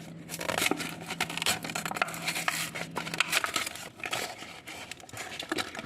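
Plastic blister packaging of a Hot Wheels die-cast car crackling and rustling as it is opened by hand, a busy run of quick crackles and clicks. A low steady hum underneath stops about halfway through.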